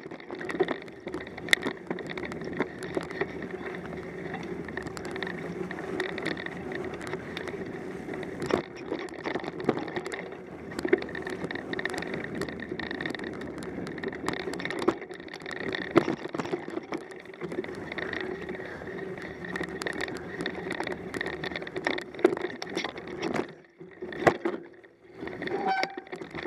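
Mountain bike riding along a dirt singletrack dusted with snow and leaves: steady tyre-rolling noise broken by frequent knocks and rattles over bumps. It quiets for a moment near the end.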